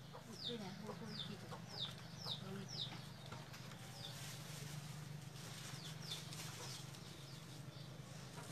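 A chick peeping over and over, short high peeps that fall in pitch, about two a second, dying away after three or four seconds, over a steady low hum.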